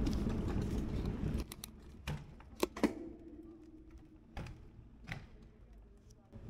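Scattered sharp clicks and knocks at irregular intervals, about seven in all, over quiet street ambience. The loudest pair comes a little before the middle, the second of them leaving a brief ringing tone. The background is louder for the first second and a half, then drops.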